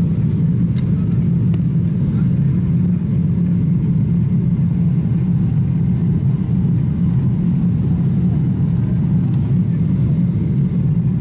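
Airliner cabin noise in flight: a steady low drone of jet engines and rushing air, heard from inside the cabin at a window seat.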